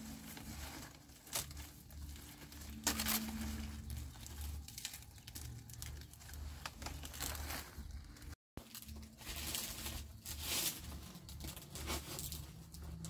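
Irregular rustling and crinkling of something being handled, with a few sharper clicks and knocks along the way.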